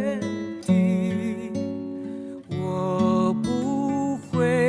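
Background music: a slow Chinese-language ballad with acoustic guitar and long, wavering melody notes.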